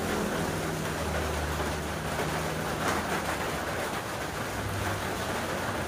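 Steady rain falling, an even hiss with a low hum underneath.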